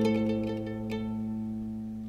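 Background music on plucked strings, harp-like: a few soft plucked notes, then a held chord slowly fading away.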